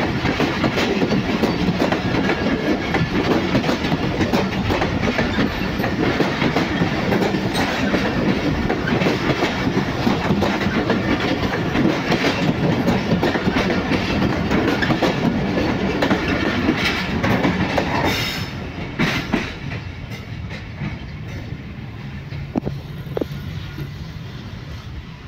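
Passenger coaches of the departing Millat Express rolling past close by, their wheels clattering over the rail joints. About 18 seconds in the last coach goes by and the sound drops to a fainter rumble as the train pulls away.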